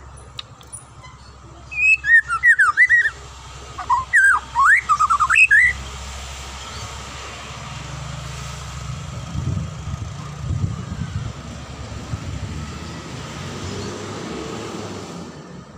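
White-rumped shama (murai batu) singing two loud bursts of fast, gliding whistled notes in the first six seconds. After that the song stops, leaving a steady low rumble and hiss that swells briefly past the middle.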